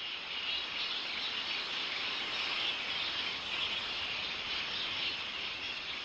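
Forest insects droning steadily, a high, even hiss without breaks.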